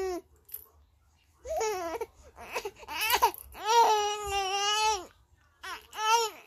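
A three-month-old baby fussing in cry-like wails: a couple of short wavering cries, then one longer cry about four seconds in, and a brief one near the end.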